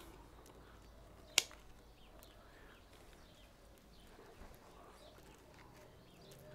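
Hand pruning shears snipping through ficus ginseng roots: one sharp snip about a second and a half in, then a few faint clicks over quiet room tone.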